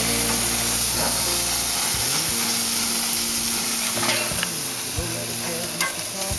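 Food searing on a hot grill: a steady sizzling hiss.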